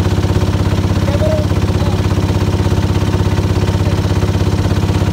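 Boat's hand-cranked diesel engine running steadily, with a fast, even beat.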